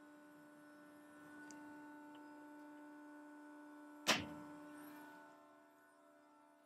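A single loud metal clank about four seconds in, ringing briefly, as stainless-steel press parts are handled, over a steady machine hum.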